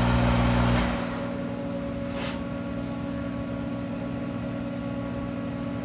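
Monarch 10EE toolroom lathe running, then just under a second in its drive is switched off with a clunk and the level drops; a quieter steady machine hum carries on, with another clunk about two seconds in.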